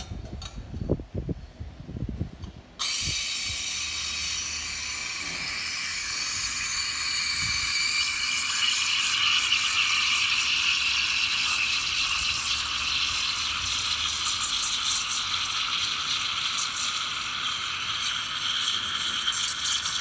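Espresso machine steam wand steaming milk in a stainless steel pitcher: a few low knocks of handling, then the steam opens with a sudden loud hiss about three seconds in and runs steadily, growing louder and rougher from about eight seconds in.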